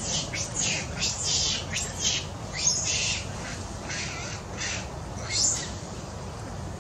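Macaques calling: a run of short, high squeaks and screeches, one after another, the last about five and a half seconds in.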